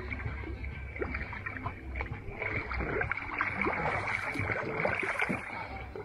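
Pool water splashing and sloshing irregularly as a swimmer pulls arm strokes close by, over a steady high-pitched hum.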